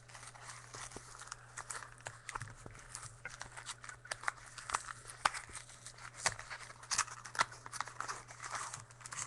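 Trading-card packaging being handled and opened: crinkling wrapper and tearing, with many small clicks and rustles.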